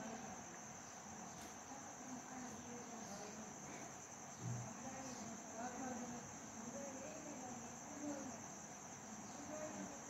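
Steady high-pitched insect chirring, with faint distant voices underneath and a few light clicks.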